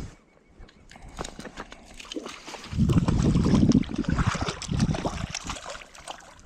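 Stream water splashing and sloshing in short bursts, loudest about three seconds in.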